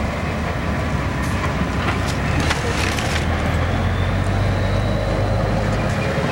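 Steady low rumble of a motor vehicle engine, growing stronger in the second half, with a few sharp clicks in the first half.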